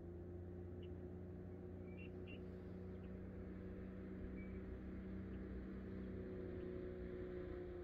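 Electric trolling motor humming steadily at low power, holding the boat in place, with its pitch shifting slightly near the end. A few faint short chirps sound above it.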